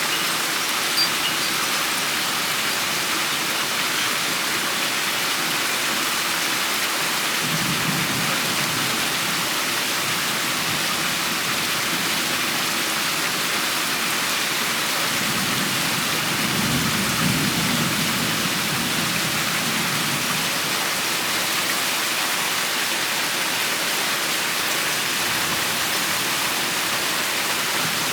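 Steady rain falling, an even hiss, with distant thunder rumbling low twice: briefly about a quarter of the way in, then longer and stronger a little past the middle.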